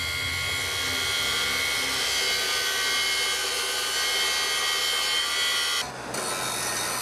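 Steady high-pitched grinding whine of a power tool cutting metal and throwing sparks. It breaks off a little before six seconds in.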